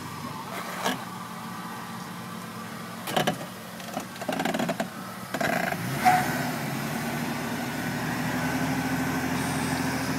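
Jeep Grand Cherokee ZJ engine running at low revs, with a few short knocks early on. About six seconds in it comes up onto a louder, steady pull as the Jeep crawls up a rock slab.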